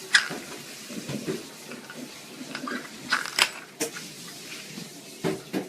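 A pet sneezing: short, sharp sneezes, the loudest right at the start and a few more about three seconds in and near the end.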